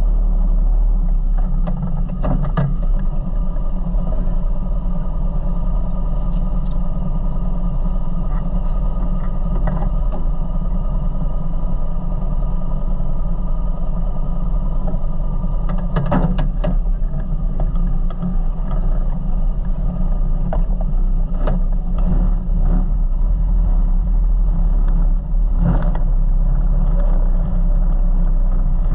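Off-road vehicle's engine running steadily, with a few scattered knocks and rattles.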